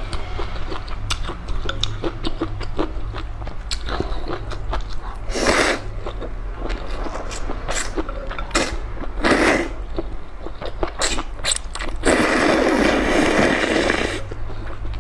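Close-miked noodle eating: wet mouth clicks and chewing, short slurps about five and a half and nine seconds in, and a long noodle slurp lasting about two seconds near the end, over a steady low hum.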